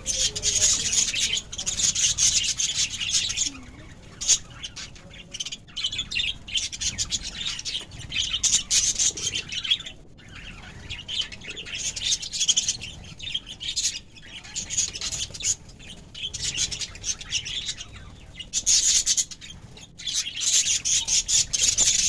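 A flock of budgerigars chattering: a dense, rapid, high twittering that comes in bouts of a couple of seconds with brief lulls between.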